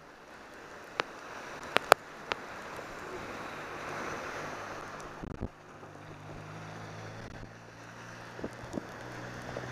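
Wind and rain noise on a camera carried by a cyclist riding in the rain, with a few sharp clicks in the first couple of seconds. From about halfway a low steady motor-vehicle hum joins in.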